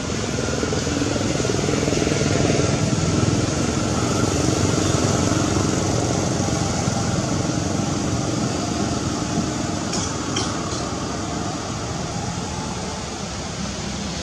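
A steady engine-like rumble with hiss, as of a motor running nearby. A few short, sharp clicks come about ten seconds in.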